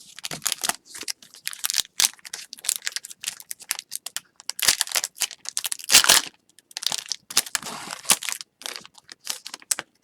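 Trading-card pack wrapper being crinkled and torn open, a rapid string of sharp crackles and rustles, loudest about five and six seconds in.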